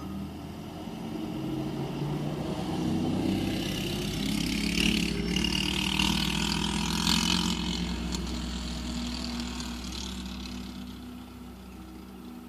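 A motor vehicle passing by: engine and road noise that builds over a few seconds, peaks in the middle and fades away again.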